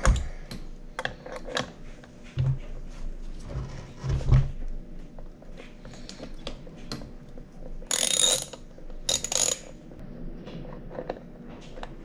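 Hand tools working on a Kawasaki KX65 engine as the water pump cover comes off: a ratchet clicking with metal clinks and a few dull knocks of parts being handled, and two short harsh scraping bursts about 8 and 9 seconds in.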